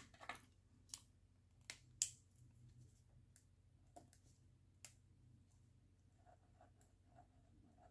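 Quiet handling sounds of pens: a scattering of short, faint clicks and taps as pens are picked up, uncapped and set down, with the faint scratch of a pen tip writing on paper.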